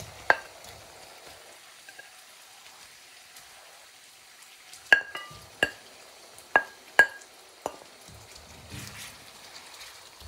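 A wooden spatula knocking against a white plate several times, with short ringing clinks, as cooked king prawns are scraped off it into a wok. One knock comes near the start and a quick cluster between about five and eight seconds in, over a faint sizzle of prawns frying in oil.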